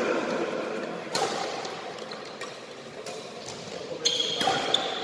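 Badminton rally in a large sports hall: several sharp racket strikes on the shuttlecock, a second or more apart, the loudest about a second in, echoing off the hall, with a brief high squeak near the end.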